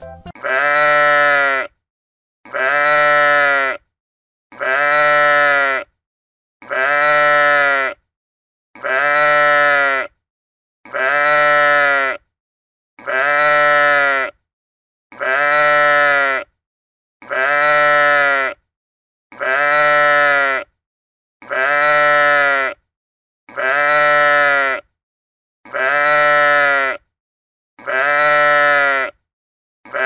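A sheep's bleat repeated about fifteen times, one every two seconds, each call the same, with silence between.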